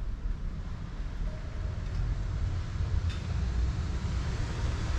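Wind rumbling unevenly on the microphone over a faint hiss of distant traffic, with a single sharp click about three seconds in.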